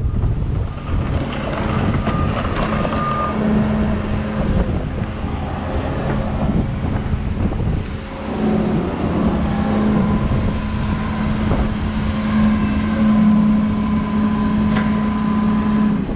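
Kobelco SK210 tracked excavator's diesel engine running steadily as the machine is driven off a trailer, with a steady drone and fainter higher tones over it.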